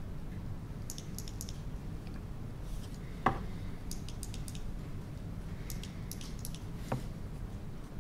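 Quiet room tone with a steady low hum, scattered faint clicks, and two light knocks, about three and seven seconds in.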